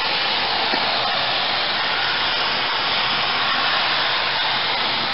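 Steady hiss of steam escaping from the live 2-8-4 Berkshire steam locomotive Pere Marquette 1225.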